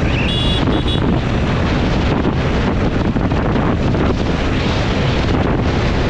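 Wind buffeting on a GoPro microphone on a motorcycle at speed, a TVS Apache RTR 160 4V, its engine and road noise running under the wind. Two short high-pitched beeps sound in the first second.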